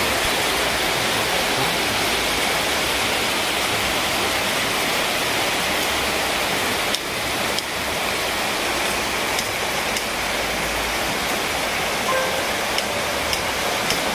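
Shallow rocky stream running over stones: a steady, even rush of water, with a few faint clicks in the second half.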